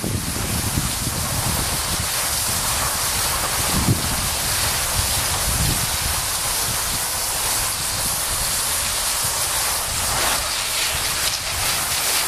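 Cross-country skis hissing steadily as they glide down packed, icy snow, with wind buffeting the microphone in a low rumble.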